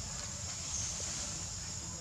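Steady outdoor background in trees: a constant high hiss with a low rumble underneath, and no distinct event.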